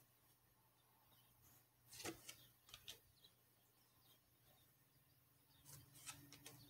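Faint handling of paper trading cards: brief slides and flicks as the cards are shuffled through by hand and laid on a table, a few scrapes about two seconds in and again near the end.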